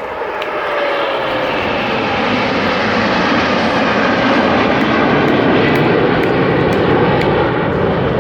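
Jet aircraft flying past overhead, a loud engine roar that swells over the first second and then holds steady. A whine falls in pitch over the first second and a half.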